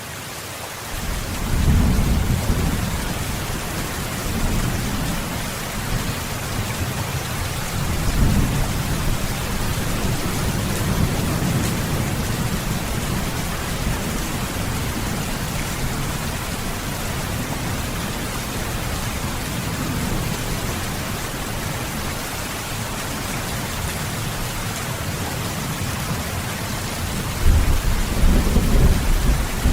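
Steady rain with low rolls of thunder rumbling several times, the strongest near the end. It fades in over the first couple of seconds.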